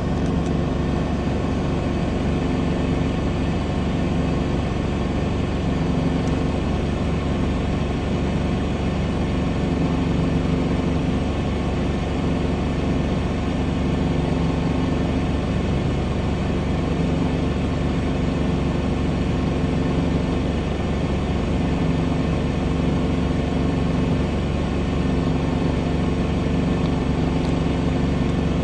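Steady car engine hum heard from inside the cabin, with some swelling and easing in its low tones.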